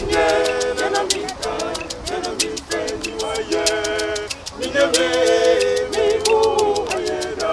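Music with singing voices carrying a melody over quick, steady percussion ticks.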